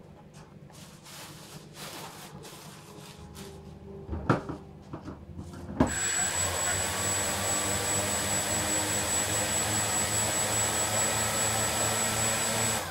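Two sharp clicks, then the Walkera QR X350 quadcopter's brushless motors spin up with propellers removed: a whine that rises and then holds steady over a loud hiss and a high steady whine. The sound cuts off suddenly near the end.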